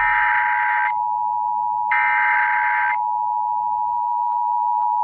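Emergency Alert System attention signal, a steady two-tone electronic beep held continuously. About one-second bursts of screeching digital data, like SAME header tones, sound over it at the start and again two seconds in.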